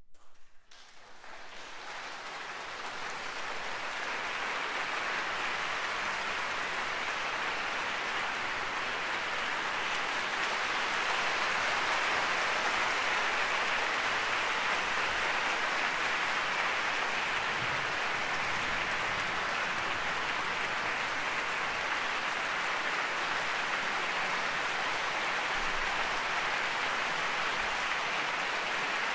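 Audience applauding in a concert hall: the clapping starts about half a second in, swells over the first few seconds, then holds as steady applause.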